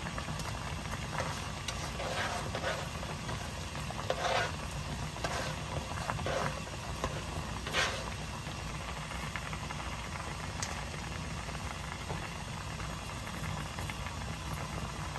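Pollock stew boiling hard in a shallow pan: a steady hiss of bubbling broth with scattered sharper pops and splashes, the loudest a little over four seconds in and just under eight seconds in.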